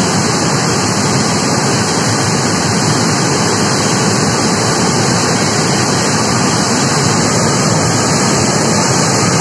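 A river in flood: muddy floodwater rushing and churning in a loud, steady roar that holds unchanged throughout.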